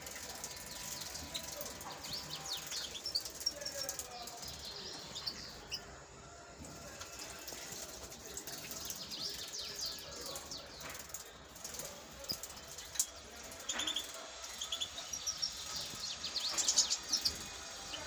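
European goldfinches calling in short, high chirps and twitters, scattered throughout and thickest near the end.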